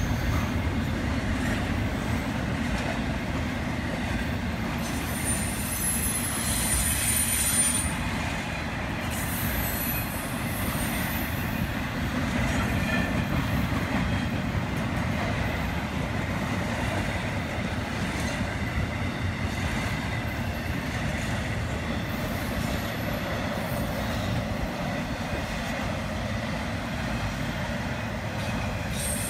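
Intermodal freight train's well cars rolling past: a steady rumble of steel wheels on the rails, with brief high-pitched wheel squeals about six to eight seconds in.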